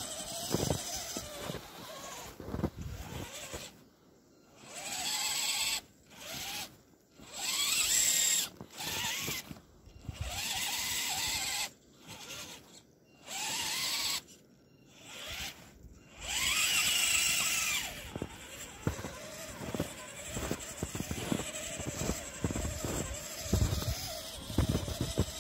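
Electric motor and drivetrain of an HSP Climber 4WD RC crawler whining in a string of short throttle bursts, each rising and falling in pitch, as it is blipped to push through wet snow where the tyres find little grip. Quieter low thuds come before and after the bursts.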